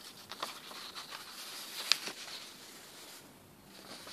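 Hands handling a plastic maggot feeder: light rustling and small clicks, with one sharper click about two seconds in.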